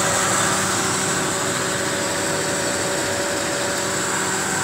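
Kia Pride's four-cylinder engine idling steadily on a small motorcycle carburetor, with the air conditioning switched on.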